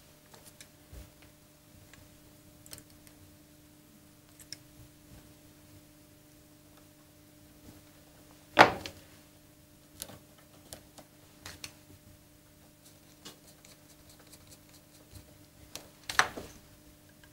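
Light scattered clicks and taps of small tools and clarinet keywork as a key that moves too easily is adjusted to make it stiffer. Two sharper clacks stand out, about halfway through and near the end, over a faint steady hum.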